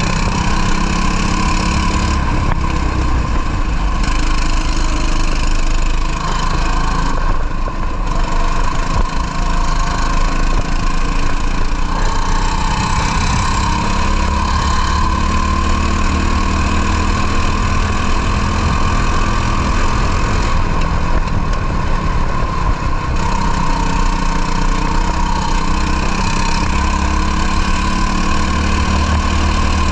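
Racing kart engine running hard at race speed, steady and loud, its pitch dipping and climbing again several times as the revs drop and build.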